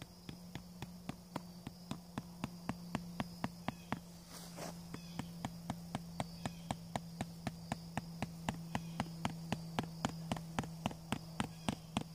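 Hammer tapping a metal sod pin down through woven weed fabric into hard ground, in quick even light strokes about three a second.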